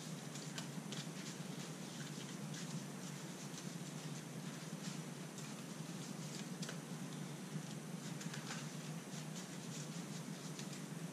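Two sleeved Magic: The Gathering card decks being shuffled by hand: a light, irregular pattering of sleeved cards sliding and snapping together, over a steady low hum.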